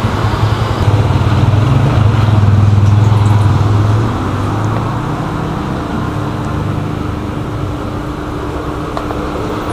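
Low rumble of road traffic, a vehicle passing close by: it swells over the first few seconds, then eases into a steadier background hum.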